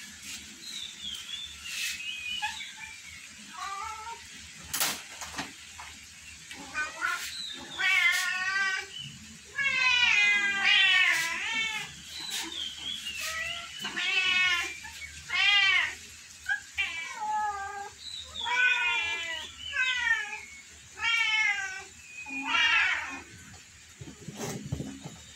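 Several cats and kittens meowing over and over, a dozen or so drawn-out meows that rise and fall in pitch, some overlapping. A few short sharp clicks fall between them.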